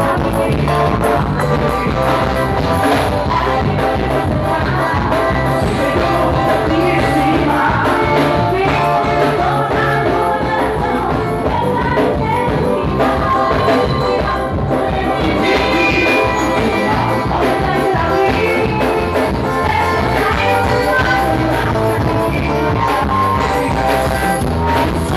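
Live carnival band playing loud, upbeat music, with a singer over horns and a steady drum beat.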